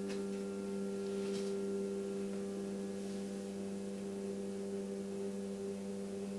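Uniformation GK3 Ultra resin printer's Z-axis stepper motor turning the ball screw to raise the build plate to the top: a steady, even-pitched motor hum.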